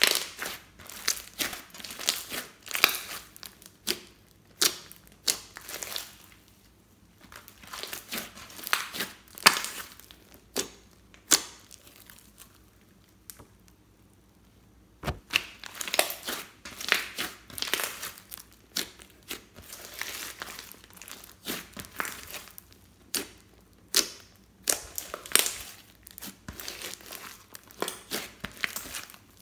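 Hands squeezing, stretching and kneading thick pink slime dotted with foam beads, giving runs of irregular clicking and popping, with a quiet pause of a few seconds midway. At the start the slime is pressed inside a clear plastic bag, adding crinkling.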